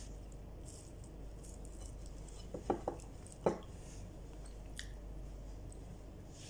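A person eating with their hands: faint chewing, with a few short mouth smacks a little before the middle and a soft click shortly after, over a low steady hum.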